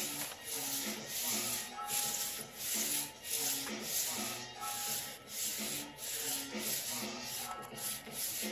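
Hands rubbing back and forth over an adhesive plastic overlay to press it down onto a wooden pinball playfield, a rhythmic swishing of about two strokes a second. Faint music plays underneath.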